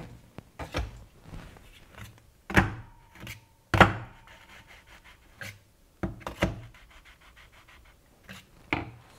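Espresso tamper pressing ground coffee into a portafilter fitted with a dosing funnel: a series of irregular knocks and clinks, the loudest about two and a half and four seconds in.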